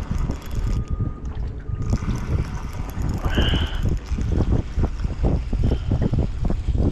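Wind buffeting the microphone in uneven, rumbling gusts, with a brief high squeak about three seconds in.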